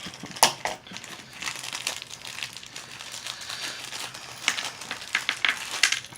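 Packaging crinkling and rustling by hand as a toy mystery box's contents are unwrapped, with sharp crackles about half a second in and again near the end.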